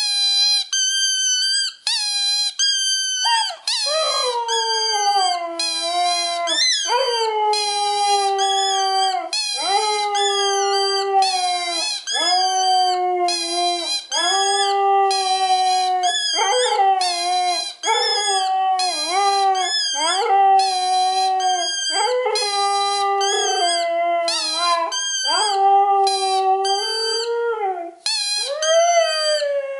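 A squeaky ball squeaks in quick repeated pulses. After about three seconds a Siberian husky joins in and howls along: a long series of howls, each starting high and sliding down to a held note, with the squeaking going on over them to near the end.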